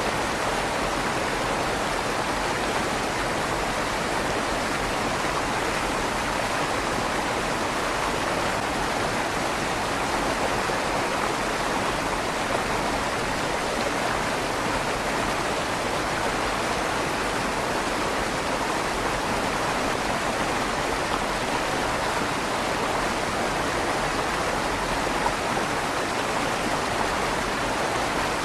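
River water flowing steadily through a stone bridge tunnel, a continuous rushing sound with a slight echo off the stone walls.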